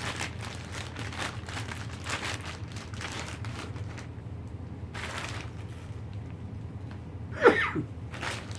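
Packaging rustling and crinkling as a new rifle is handled out of its box, then a short squeak that slides down in pitch near the end, the loudest sound here.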